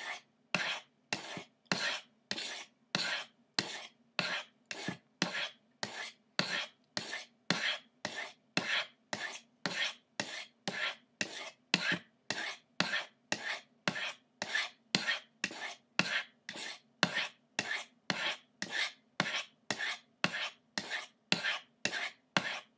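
Steel knife blade scraping down the medium-grit ceramic rods of a Lansky Crock Stick sharpener in a steady rhythm of about two strokes a second, alternating between the two rods of the V to sharpen both sides of the edge evenly.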